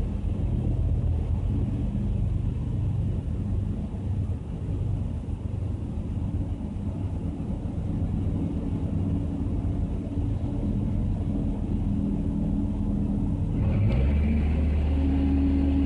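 Steady low engine rumble, heard from inside a car's cabin. About fourteen seconds in, a deeper, louder engine note comes in.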